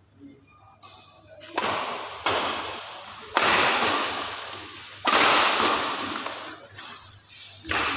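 Badminton rackets striking the shuttlecock in a rally: five sharp cracks at uneven spacing, each ringing on in a long echo through the hall.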